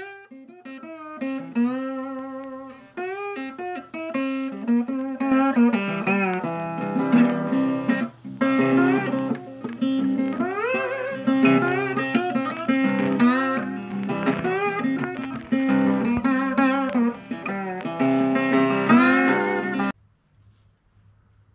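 Outro music: guitar with many picked notes, slides and bends, which stops abruptly near the end.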